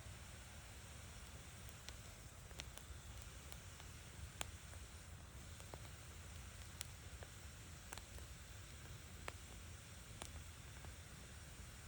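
Wood fire crackling: scattered sharp pops from burning wood, about ten at irregular intervals, over a steady low rush.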